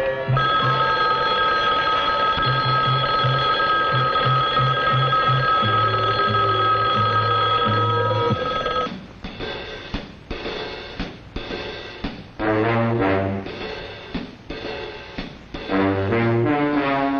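Orchestral film-score music with brass. A long held chord over repeated low notes gives way about nine seconds in to short, separated chords with brief gaps between them.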